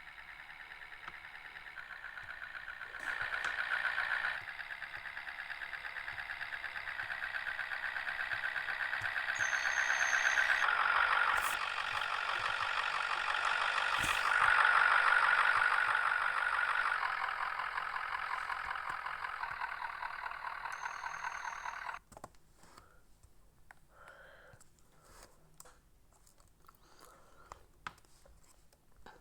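A MAZ-105 city bus's diesel engine and drivetrain heard from on board, growing louder as the bus picks up speed, with a change in tone about ten seconds in. About two-thirds of the way through the sound cuts off suddenly, leaving a quiet background with a few clicks.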